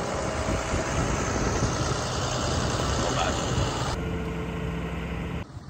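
New Holland tractor's diesel engine running steadily, with a rushing noise over it that drops away about four seconds in, leaving the even engine sound as the tractor and trailer reverse.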